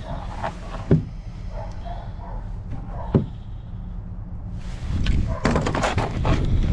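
Plastic blister-packed hitch lock being handled on a truck tailgate, with a couple of short sharp knocks about a second and three seconds in. From about five seconds in, wind buffets the microphone loudly.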